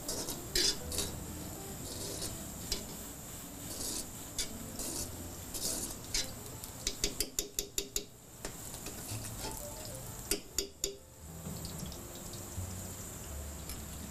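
Metal spoon scraping and clinking against a stone-coated non-stick frying pan as ghee is spooned into hot oil, with a quick run of about eight sharp taps about seven seconds in. A faint steady hiss runs underneath.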